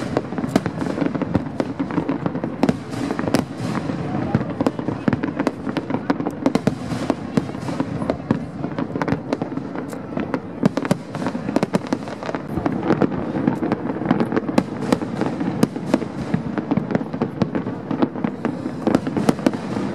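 Aerial fireworks display going off nonstop: a dense, continuous run of bangs and crackles, many per second, over a steady rumbling haze.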